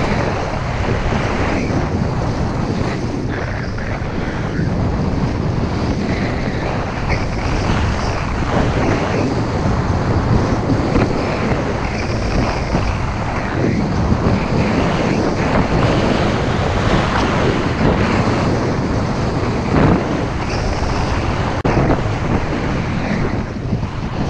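Heavy wind rush on the microphone of a skier's camera at speed, mixed with the hiss and scrape of skis turning on packed snow, rising and falling in surges every second or two.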